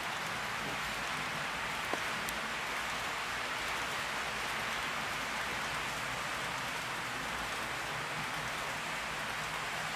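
HO scale model coal train running on a DC layout: a steady hiss of the models' wheels and motors rolling along the track, with a single click about two seconds in.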